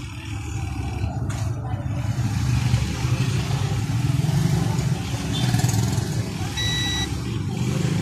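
A digital multimeter's continuity beeper sounds one steady half-second beep a little past two-thirds of the way in, as its probes touch the pins of a transistor on the board: the meter is reading continuity or a very low resistance between them. Under it runs a steady low rumble, louder than the beep.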